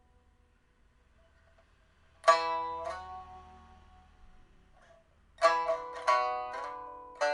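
A 1993 Shen Huanchun pipa, newly refitted with a fire-baked soundboard and handmade frets, played in slow, spaced phrases as a test after the repair. About two seconds of near quiet come first, then a plucked chord and a single note. After another pause there is a quick cluster of plucked notes, and a final chord near the end; each one rings out and fades.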